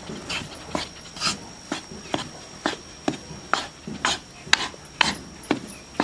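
Spatula scraping and knocking against a kadhai as whole-wheat flour is stirred and roasted in ghee, about two strokes a second.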